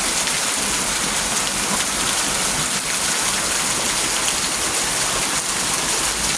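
Steady rain falling, an even hiss of drops on the ground and surfaces around.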